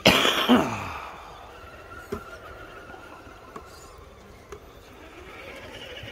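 A sudden loud clatter with a falling, groan-like voice at the very start as an RC crawler knocks wooden planks loose on a track bridge, then a few single light knocks.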